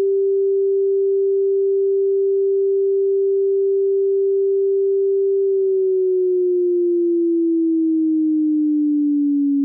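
Synthesized tsunami all-clear siren signal: one long, steady, pure tone that, a little past halfway, starts to slide slowly down in pitch with a slight wobble, like a siren winding down.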